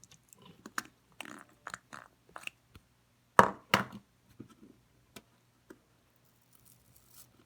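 Handling noises: scattered light clicks and taps of small objects being moved, with two louder knocks about halfway through.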